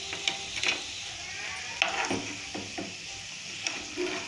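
Hot oil sizzling as potato-onion pakoras deep-fry in a pan, with a spoon scraping and knocking against the pan several times as the fried pakoras are lifted out.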